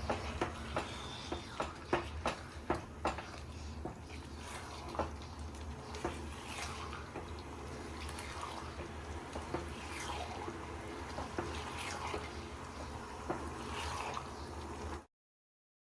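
Chicken bhuna masala cooking in a pan: a spoon clicks and knocks against the pan over a wet, sizzling bubble, with a steady low hum underneath. The clicks are thickest in the first few seconds, and it all stops abruptly near the end.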